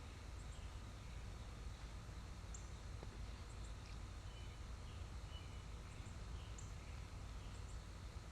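Faint woodland ambience: scattered short, very high bird chirps and a few brief whistles over a steady low rumble.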